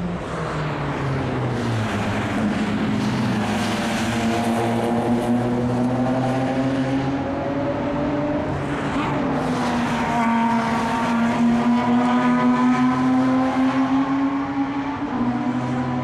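Sports car engine running hard on a race circuit. The pitch falls at first, then climbs, dips sharply at a gear change about nine seconds in and climbs steadily again, growing louder.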